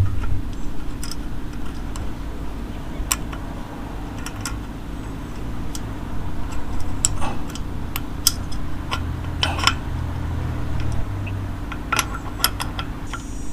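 Scattered light metallic clicks and clinks of small parts being handled as the Harley clutch release mechanism is fitted back into its cover, over a steady low hum.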